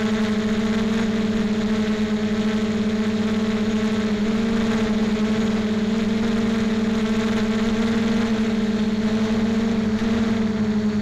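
Small radio-controlled aircraft's motor and propeller, recorded from on board: a steady droning whine holding one pitch, dipping slightly near the end.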